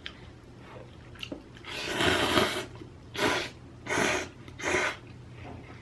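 A person's breath noises close to the microphone: one long breath about two seconds in, then three shorter breaths in an even rhythm.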